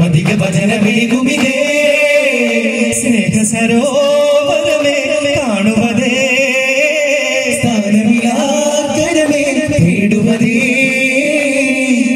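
Male voices singing a devotional daf muttu song together through a PA, long held notes with a wavering pitch, with daf frame drums beating along underneath.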